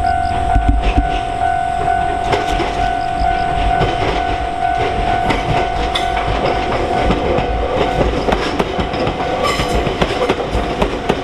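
Ryutetsu Nagareyama Line train running along the track, wheels clattering with scattered clicks and knocks. A steady high ringing tone sounds over it and fades out near the end.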